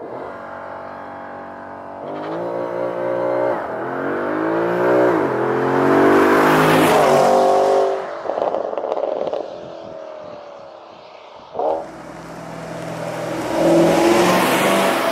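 Porsche Panamera GTS's 4.8-litre V8 exhaust under hard acceleration, the pitch climbing and dropping back sharply at each gear change. It eases off, gives one brief sharp burst, then swells as the car passes close by and fades away.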